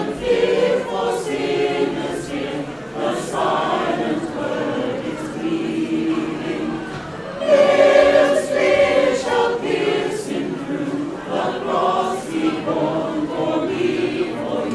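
Mixed choir of men and women singing a Christmas carol in several voice parts, in sustained phrases; it gets louder about halfway through.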